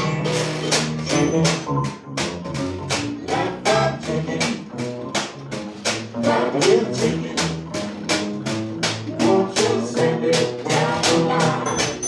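Live swing band playing an instrumental passage: upright bass notes under a lead melody, driven by a steady, crisp washboard beat about four strokes a second.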